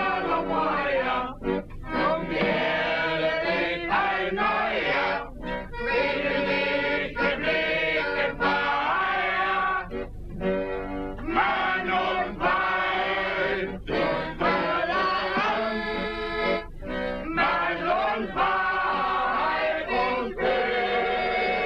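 A group of voices singing a workers' song together in chorus, in rough unison with the lines rising and falling.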